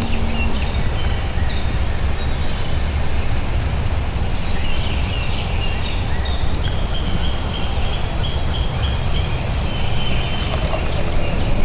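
Wind rumbling on the microphone, with birds chirping and trilling in the background.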